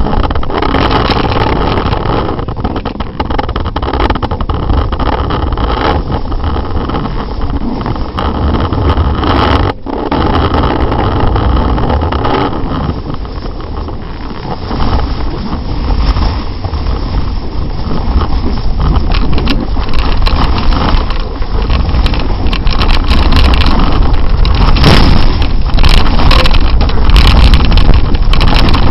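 Snowboard sliding and scraping over packed snow, heard close up as loud rumbling noise with wind buffeting the microphone. It dips briefly about ten seconds in, then grows louder and rougher through the second half, with crackling spikes near the end.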